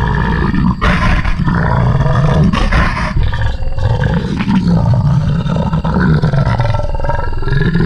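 Loud, drawn-out creature roars and growls, a horror monster sound effect, with slow swoops in pitch and harsher surges about a second in and again near three seconds.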